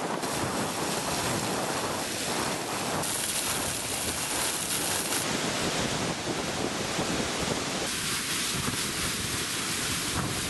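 Hurricane wind and driving rain, a steady rush of noise with wind buffeting the microphone. The sound changes abruptly a few times.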